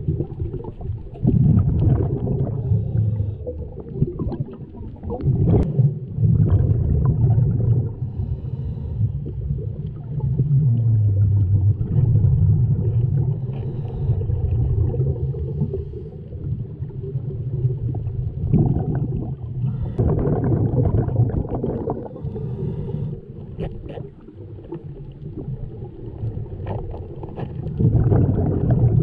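Underwater sound of a scuba diver breathing through a regulator. Exhaled bubbles come as repeated bursts of low rumble a second or more long, with hissing inhales between them and scattered clicks from gear handling.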